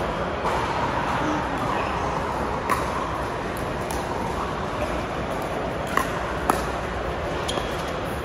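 Pickleball paddles striking a plastic pickleball during a doubles rally: several sharp pops, one to three seconds apart, over a steady background hiss in a large indoor hall.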